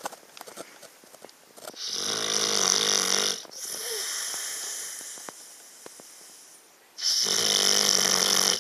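Snoring: two loud, rattling inhaled snores, one about two seconds in and another about seven seconds in, each lasting over a second, with a quieter breathy exhale between them.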